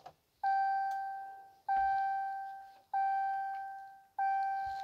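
2017 Ram 2500's seatbelt reminder chime sounding after the ignition is switched on: four single bell-like tones about one and a quarter seconds apart, each fading out.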